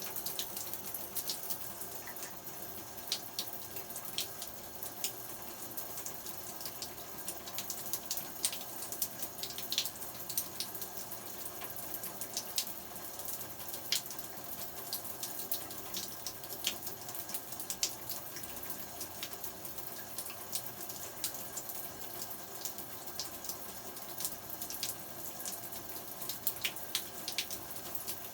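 Shower water running steadily, with many small splashes and spatters.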